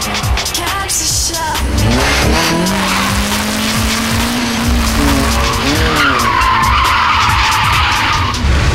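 Car engine revving hard, its pitch rising and falling, with tyres squealing and skidding in the second half.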